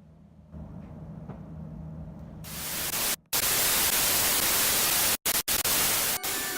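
A low hum for about two seconds, then a loud, even static hiss like white noise that cuts out abruptly for a moment several times.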